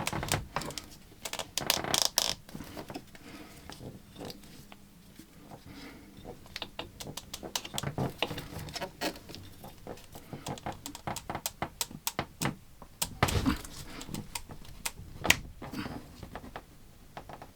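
Irregular small clicks, knocks and rattles of hard objects being handled, with a few louder knocks spread through.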